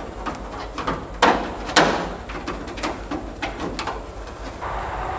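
Thin self-adhesive aluminum repair patch crinkling and clicking as gloved hands press and bend it into a rusted wheel well, with two louder crackles about one and two seconds in.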